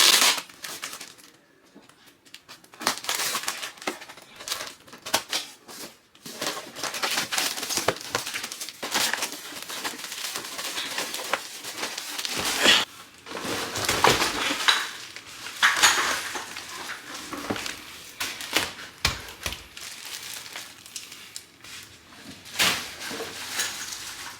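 Unboxing and assembling a wagon: packaging rustling and crinkling, with irregular clicks, knocks and clatter of its parts being handled and fitted together. The loudest knocks come about halfway through.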